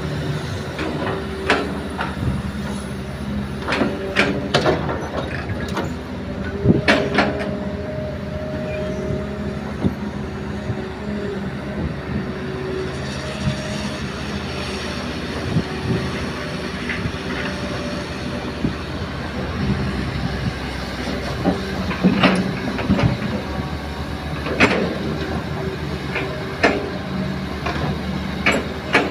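Kobelco hydraulic crawler excavator running steadily under load while digging and loading soil, its engine hum steady with sharp metallic clanks and knocks from the bucket, arm and tracks scattered through, a cluster about four to seven seconds in and several more in the last third.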